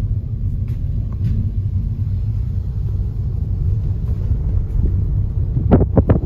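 Car driving along, a steady low rumble of engine and road noise. Near the end comes a quick run of knocks or thumps.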